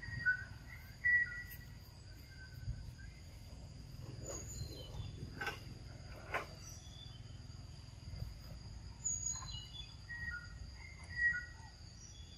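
Outdoor forest ambience: a steady high insect drone with short high-pitched chirping calls, loudest just after the start and again near the end, and a few faint clicks in the middle.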